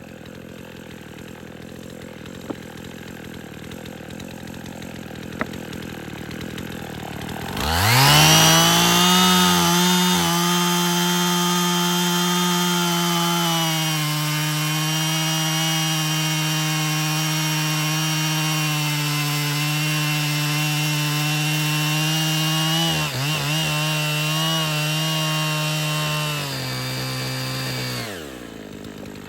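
Husqvarna 55 two-stroke chainsaw revved up sharply about a quarter of the way in and held at high, steady revs for about twenty seconds, then let back down near the end.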